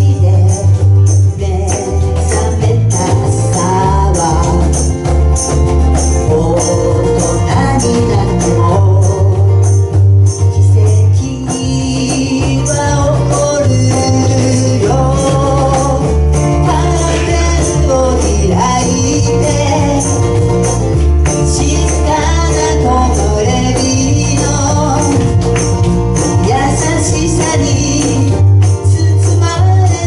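A live band playing a pop song: two women singing into microphones over acoustic guitar, electric bass and keyboard, with a strong, stepping bass line.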